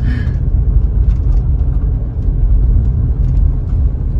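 Steady low rumble of a car's road and engine noise heard from inside the cabin while driving slowly.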